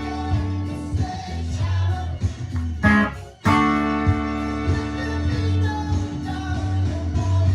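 Guitar music: held chords over a pulsing bass line, with a short break about three seconds in before the chords come back.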